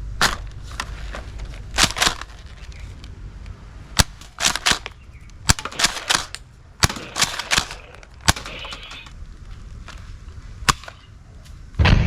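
A series of sharp gunshot-like cracks at irregular spacing, some coming in quick pairs, over a low steady rumble.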